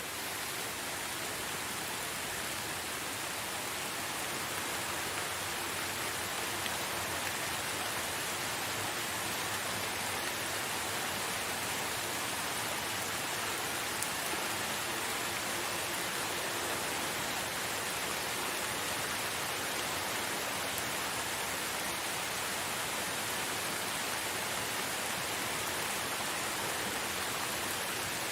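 Steady, even rain falling, a constant dense hiss of drops with no thunder or separate drips standing out.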